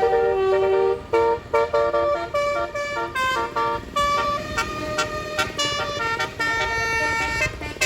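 Bus 'telolet' multi-note horn playing a quick tune of short and held notes.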